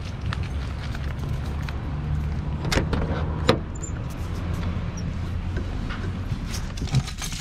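A car door being unlatched and opened, with a sharp click about halfway through and a few more clicks and knocks, over a steady low vehicle engine hum.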